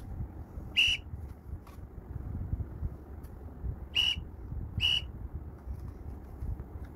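Referee whistle sound effect played through laptop speakers: three short high blasts, one about a second in and two more close together about four and five seconds in.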